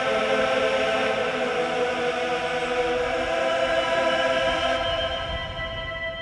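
Background music: a choir holding a long, sustained chord.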